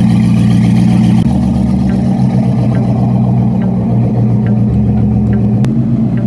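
A car engine running at idle, a steady low note that shifts slightly about a second in.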